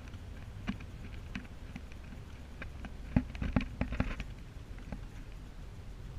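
Car driving along a narrow paved road, heard from inside the cabin: a steady low road and engine rumble with scattered light clicks and taps, bunched most thickly about three to four seconds in.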